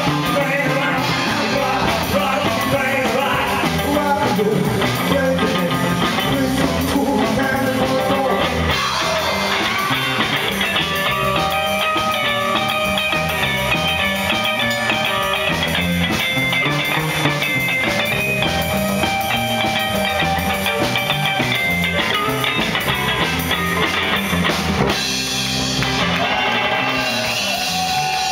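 Rockabilly band playing live: electric bass, electric guitar and drum kit, with a singer early on and a guitar lead through the middle.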